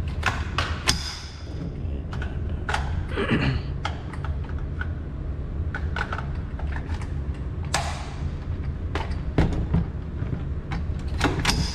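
Gunfire on an indoor shooting range: about a dozen sharp cracks at irregular intervals over a steady low hum.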